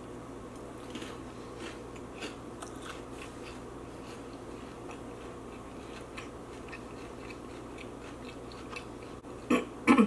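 Close-miked chewing and biting of a bagel with cream cheese and Hot Cheetos, with scattered faint crunches. Near the end, two short, much louder sounds come half a second apart.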